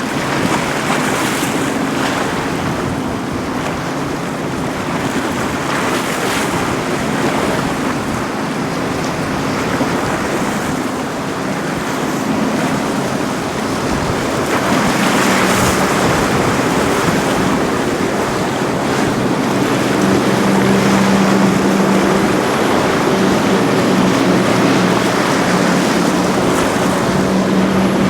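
Boat engines droning under a wash of waves and surf, with wind buffeting the microphone. The engine hum grows stronger about halfway through.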